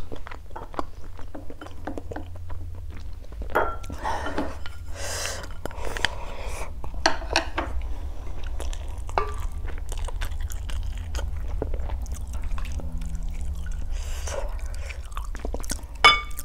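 Close-up chewing and wet mouth sounds of a person eating chicken, with small clicks and smacks throughout. Near the end a spoon knocks against the glass soup bowl with a short ring.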